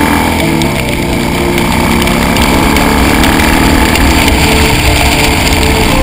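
Harley-Davidson bagger's V-twin engine running at road speed, over a steady rush of wind and tyre noise on wet pavement. The engine note falls during the first second or so, then holds steady.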